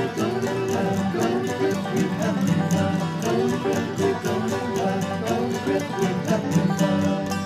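Background music with a quick, steady beat.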